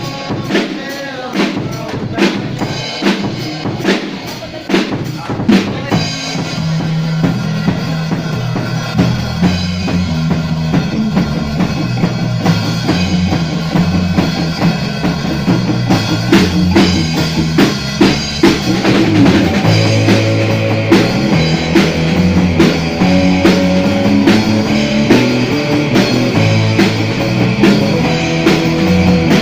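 A band playing: a Yamaha drum kit alone at first, then a Fender Jazz Bass comes in with the drums about six seconds in.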